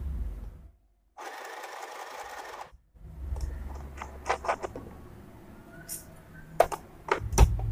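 YUTA mini electric sewing machine running for a second or two of stitching. Then come rustling and a few sharp clicks as the fabric is pulled out from under the presser foot and the threads are drawn, with the loudest click near the end.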